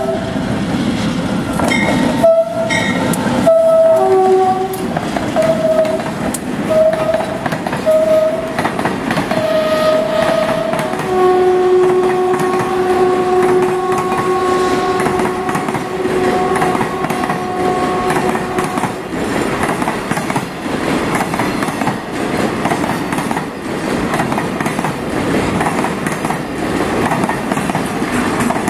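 Diesel freight locomotive's horn sounding a series of short blasts, then one long blast of several tones held for about eight seconds, as the train approaches and passes. After the horn stops, the container flatcars' wheels clatter over the rail joints as the wagons roll by.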